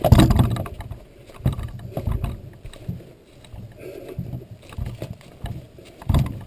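Irregular low thuds and knocks as a skin-on-frame canoe with a wooden frame is carried on a man's shoulders over a trail, his footsteps jolting the hull. The loudest thump comes at the very start, another shortly before the end.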